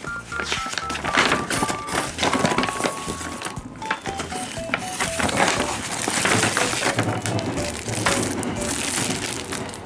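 Paper mailer envelope and plastic wrapping rustling and crinkling as a parcel is opened by hand. Light background music with a simple melody of short notes plays underneath.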